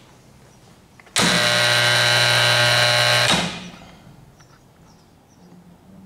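Kingsbury 23 tapping unit's electric drive motor switching on abruptly about a second in, running with a steady hum for about two seconds, then cutting off and winding down over about half a second.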